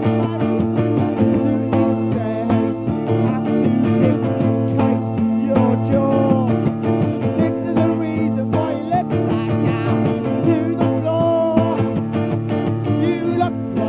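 Music: a rock band recording, with guitar and keyboard over a steady held chord and a few sliding melodic lines.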